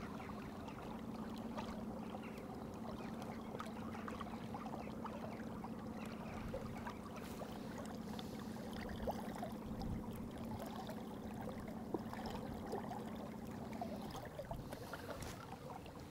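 Small inflatable boat under way: a steady motor hum over water splashing and wind noise. The hum changes pitch and eases off about fourteen seconds in.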